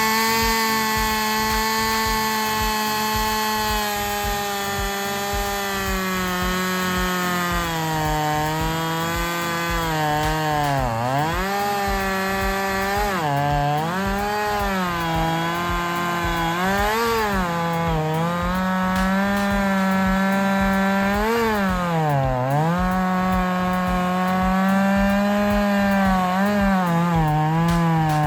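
Two-stroke chainsaw cutting into a dead, dry tree trunk at high revs. For about ten seconds the engine note holds steady. After that its pitch drops again and again as the chain bites and loads the engine, then climbs back each time.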